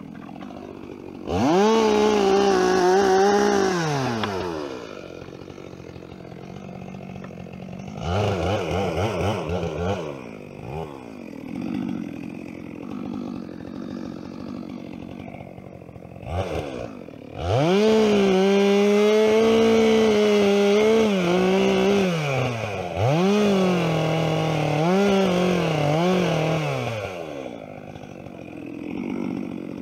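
Two-stroke chainsaw revved to full throttle in bursts and dropping back to idle between them: one burst near the start, a short one about a third of the way in, a long one past the middle, then several quick blips near the end.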